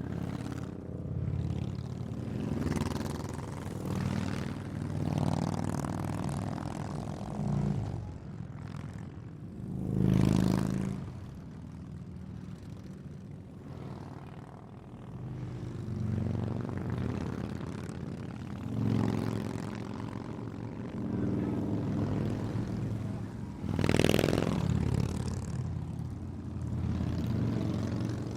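A group of Harley-Davidson V-twin motorcycles passing by fast one after another, the engine sound swelling and fading as each bike goes past. The loudest passes come about ten seconds in and again near the end.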